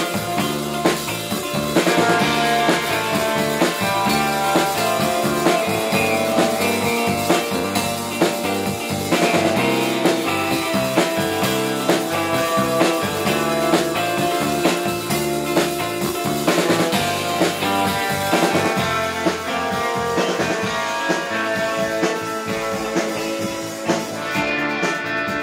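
Live rautalanka instrumental rock: a twangy electric lead guitar playing a melody over electric bass and a drum kit keeping a steady beat.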